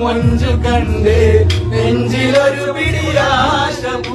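Men singing a Mappila song together in chorus over backing music with a heavy bass.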